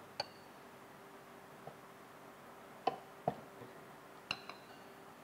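A spoon clinking and tapping against a glass bowl about six times as soaked dates are scraped out into a blender jar. The taps are light and spread out, the loudest a pair near the middle, some with a short glassy ring.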